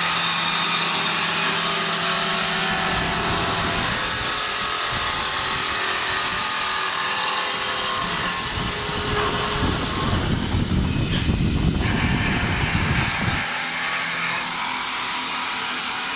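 Automatic wood lathe running, its cutter turning wood with a steady high hiss over a motor hum. A heavier rumble comes in about three seconds in and stops a few seconds before the end, and the hiss drops out briefly around ten seconds in.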